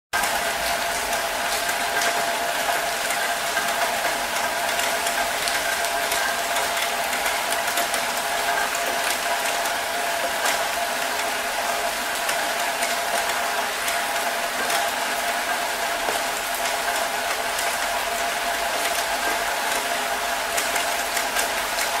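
Steady rain falling, a dense, even patter of many small drops.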